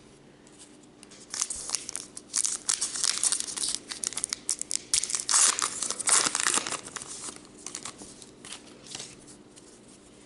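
Wrapper of a 2018 Topps Gypsy Queen trading-card pack being torn open and crinkled, a dense run of crackling for several seconds that thins out near the end.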